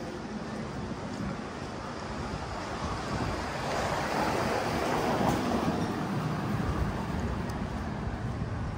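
Outdoor street noise: a rushing sound that swells about three seconds in, peaks around five seconds and then fades.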